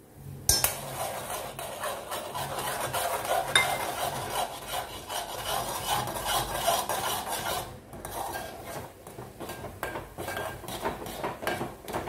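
A spoon stirring and scraping in a metal pot, beating rice flour into boiling water to make a thick dough for steamed modak: a steady rasping clatter of metal on metal that starts suddenly about half a second in and gets a little lighter after about eight seconds.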